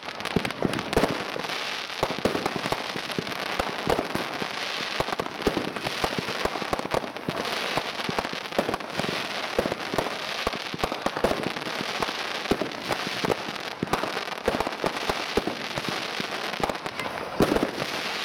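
Class II consumer fireworks going off in a continuous volley: dense, rapid pops and bangs follow one another without a break as aerial shells and stars burst.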